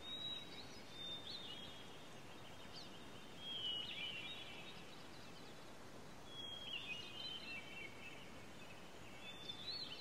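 Faint songbird song, several short phrases of whistles and trills a few seconds apart, over a steady outdoor hiss.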